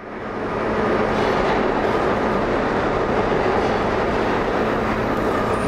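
Steady rumble and hum inside a New York City subway car, fading in at the start.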